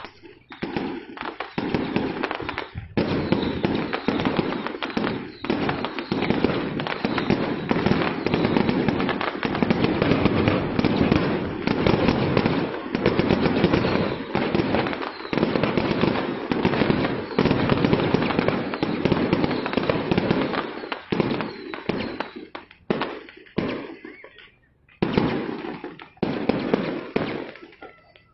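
A long string of firecrackers crackling rapidly and continuously, breaking up into scattered bangs with short gaps in the last few seconds.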